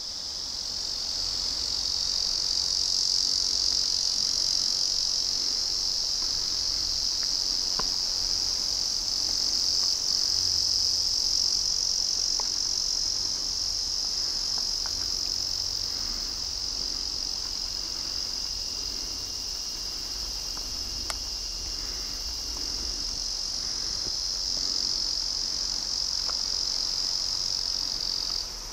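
Insect chorus: a steady, high-pitched drone that stops suddenly near the end.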